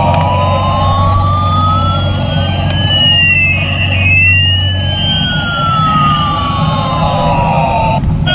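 Siren-like electronic sound effect: one tone glides slowly up while a second glides down, the two crossing about halfway through, over a steady rushing noise and low hum, ending abruptly.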